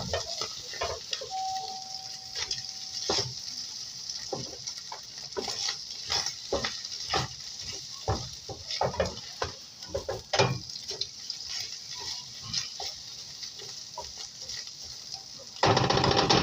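Canned corned beef hash frying in oil in a pan, with a steady sizzle while a utensil stirs it, scraping and tapping against the pan many times. A short steady tone sounds a second or so in, and a loud rush of noise comes in the last second.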